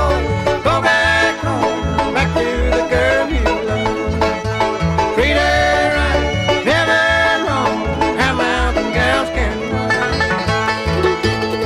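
Country song in a bluegrass style playing, with picked banjo over a steady bass beat and sliding melody notes.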